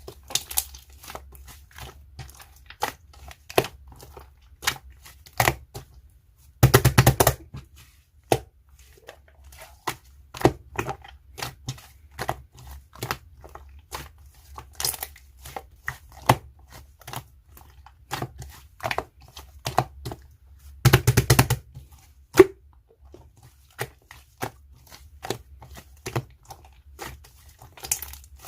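Slime being squeezed and worked by hand, making a string of sharp clicks and pops. There are two short bursts of dense crackling, about seven seconds in and again about twenty-one seconds in.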